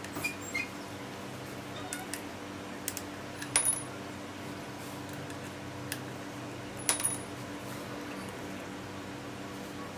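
A few light metallic clinks and taps from a steel motorcycle chain and chain-breaker tool being handled, loudest about three and a half and seven seconds in, over a faint steady hum.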